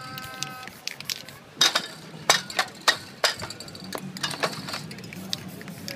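Metal aerosol spray-paint cans clinking and knocking against each other as they are handled in a crate, with a short ringing clink at the start and sharp knocks scattered throughout.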